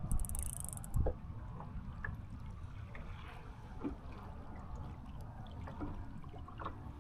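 Water trickling and lapping along the hull of a small boat under way, over a low rumble, with one soft knock about a second in.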